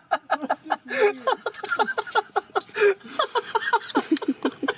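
Two men laughing, in quick repeated ha-ha pulses.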